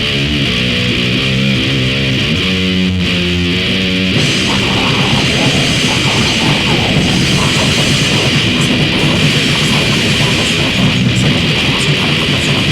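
Death grind / noise grind music: a heavily distorted guitar riff of distinct low notes for about four seconds, then the whole band comes in as a dense, noisy blast.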